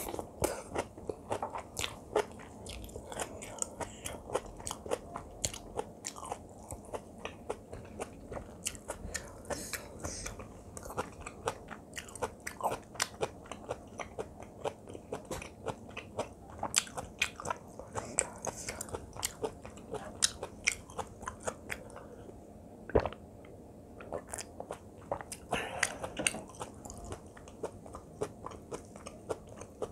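Close-miked chewing of spicy kimchi fried rice with Spam: a dense, irregular run of wet mouth clicks and smacks, with one sharper knock a little past two-thirds of the way through.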